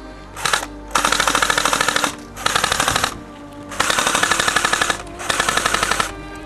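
Airsoft gun firing on full auto in five rapid bursts, about a dozen shots a second: a short burst first, then four longer ones.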